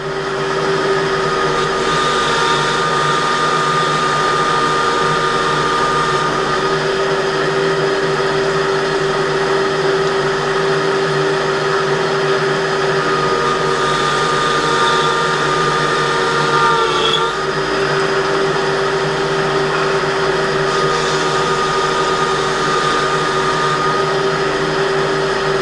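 Metal lathe running with an 18 mm drill bit fed from the tailstock, drilling through an aluminium collet under flood coolant: a steady, even whine from the spindle and cut. The pitch wobbles briefly about two-thirds of the way through.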